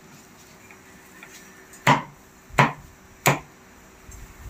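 Meat cleaver chopping grilled meat on a round wooden chopping board: three sharp chops about 0.7 seconds apart, starting a little under two seconds in.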